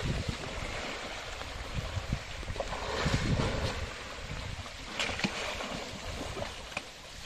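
Muddy pond water splashing and churning as an elephant rolls and bobs in it, with louder splashes about three and five seconds in.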